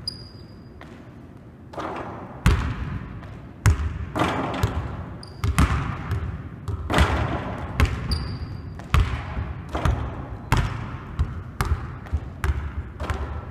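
Basketballs bouncing on a hardwood gym floor: irregular thuds, one or two a second, each echoing in the large hall. A few short high squeaks come in between.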